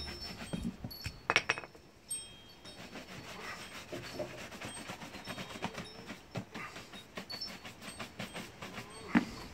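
Wooden-backed shoe brush rubbed rapidly back and forth over a leather boot, buffing the polish to a shine, with a sharper knock about a second in and another near the end.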